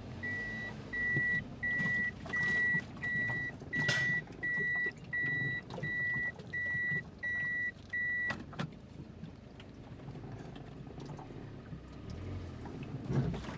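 A vehicle's reversing beeper sounding about a dozen evenly spaced high beeps, about one and a half a second, as the vehicle backs into position; the beeping stops about eight seconds in, leaving the low rumble of the vehicle.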